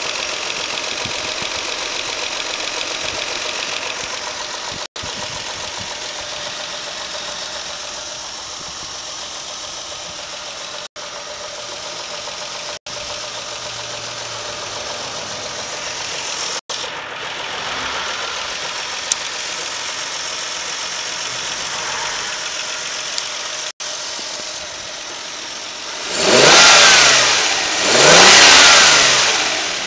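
Nissan Maxima VQ V6 engine idling steadily with a knocking/clunking sound, which the owner links to one cylinder, since no other cylinder does this when its injector is unplugged. Near the end the engine is revved up and back down twice.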